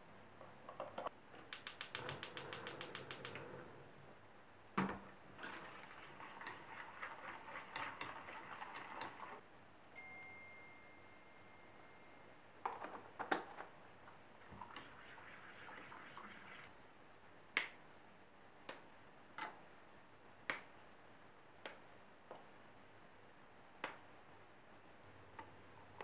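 A wire whisk stirs thick chocolate pastry cream in a stainless steel saucepan, in runs of dense clicking and scraping against the metal pan, with a quick regular run of about a dozen ticks near the start. In the second half there are single sharp clicks about a second apart.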